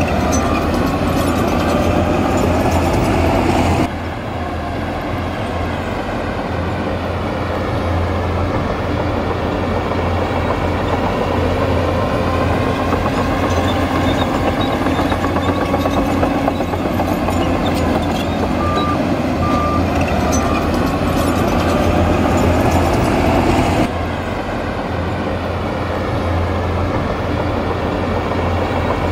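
Diesel engine of heavy earthmoving machinery running, its pitch slowly rising and falling, with a reversing alarm beeping three times about two-thirds of the way through. The engine sound drops abruptly twice.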